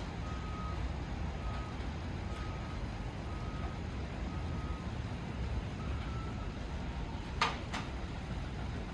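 An electronic beeper sounds a short high single-pitched beep about once every 0.8 s over a low steady rumble. It stops about five seconds in, and two sharp cracks follow a couple of seconds later.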